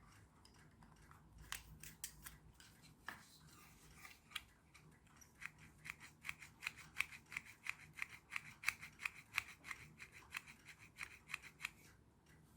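Hand finishing of a 3D-printed plastic part: a few scattered scrapes and clicks, then a steady run of short, even strokes, about three a second.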